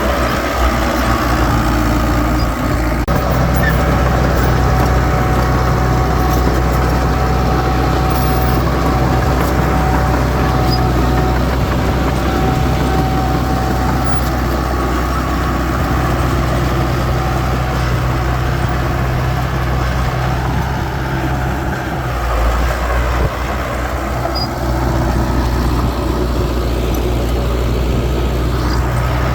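Diesel engines of heavy earthmoving machinery, dump trucks and bulldozer, running steadily with a low engine drone. The sound shifts slightly about three seconds in and again a little past twenty seconds.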